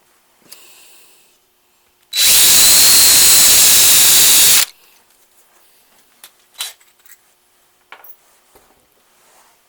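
Electric drill running at a steady speed for about two and a half seconds, drilling out the Quadrajet's OEM choke rod hole in the choke arm to 9/64 inch. Faint small clicks and ticks follow.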